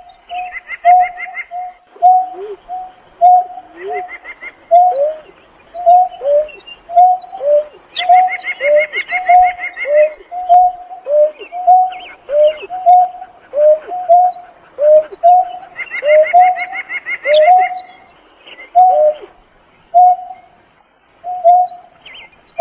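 Greater painted-snipe, a female, giving its low hooting call to others: a long string of short 'koh' notes, about two a second, some gliding down in pitch. Over it come short, rapid, higher trills, repeated every few seconds.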